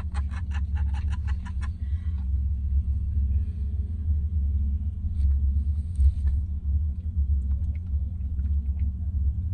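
A steady low rumble, with a fast run of short breathy pulses, about six a second, over it in the first couple of seconds that then stops.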